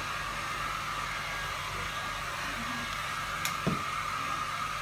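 Hair dryer running steadily. A single sharp click about three and a half seconds in, followed by a short knock.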